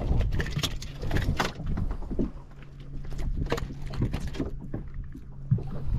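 Speckled trout flopping on a fiberglass boat deck: quick runs of knocks and slaps in two spells. A steady low hum sets in about two seconds in.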